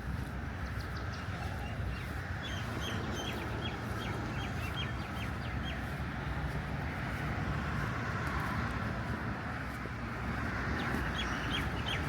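A bird calling in a quick series of short, high chirps, then again near the end, over a steady low background rumble.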